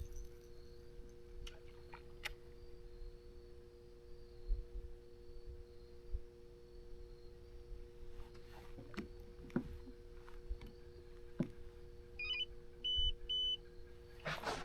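A steady low electric hum made of two tones, with scattered faint clicks. Near the end come three short electronic beeps.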